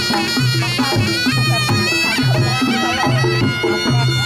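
Live Reog Ponorogo gamelan: a slompret (shawm) plays a bending, nasal melody over a low pitched pattern of drums and gongs that repeats about twice a second.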